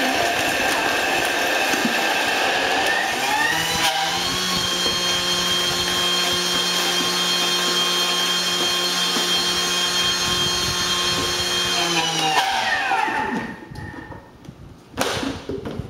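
Thermomix blending ice and Milo at speed 10: a loud motor whine that rises in pitch about three to four seconds in, holds steady, then winds down and stops about thirteen seconds in. A brief knock near the end.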